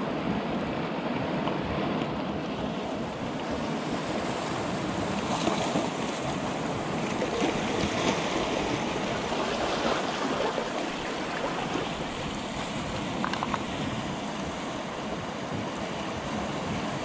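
Sea waves washing with wind on the microphone: a steady rush that swells slightly now and then.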